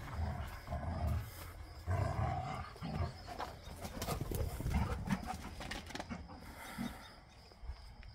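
Two dogs play-fighting, growling and snarling in rough bursts over the first few seconds, then a run of sharp clicks and knocks in the middle, with the sound tailing off near the end.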